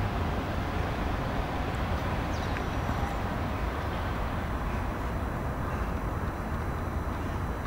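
Small utility vehicle's engine running steadily as it drives over the grass pitch clearing dew, mixed with steady outdoor background noise.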